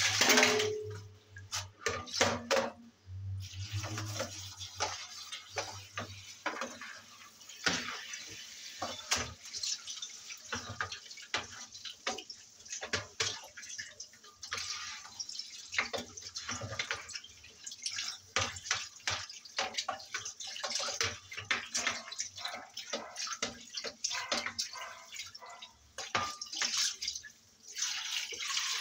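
Water running from a kitchen tap and splashing in the sink, unevenly, with many short knocks and clatters from washing up.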